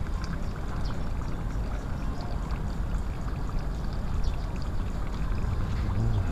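Steady rushing outdoor background noise, heaviest in the low end, with faint scattered ticks.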